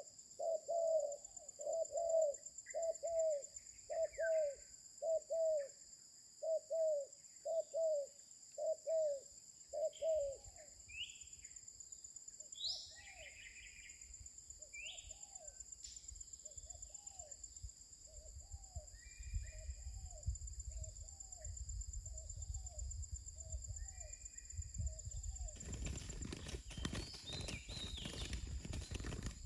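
Coarse-voiced spotted dove cooing in a steady run of short coo notes, a little over one a second, loud for the first ten seconds and then fainter. Small birds chirp between the coos, and a burst of noise breaks in near the end.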